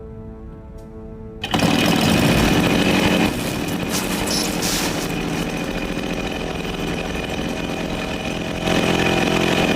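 Soft music, then about a second and a half in a loud motorised power tool with a chainsaw-like sound starts suddenly and runs steadily, easing a little after a couple of seconds and getting louder again near the end.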